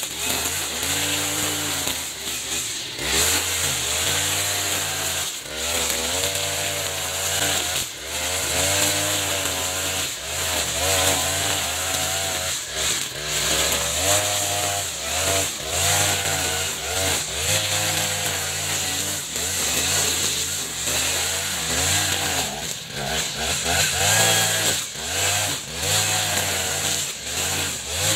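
Echo RM435 40cc two-stroke brush cutter running hard, its engine pitch rising and dipping every second or two as the spinning trimmer line is swung through thick, tall grass.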